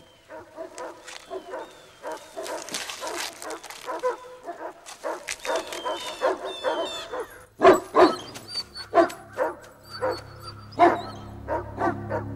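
Dogs barking over and over, with a few louder barks from about eight seconds in; a low music drone comes in near the end.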